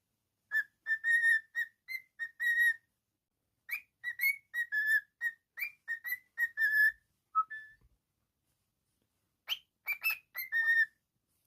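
Cockatiel whistling a tune in short, clear notes mostly on one pitch with brief upward flicks, in three phrases separated by pauses of about a second.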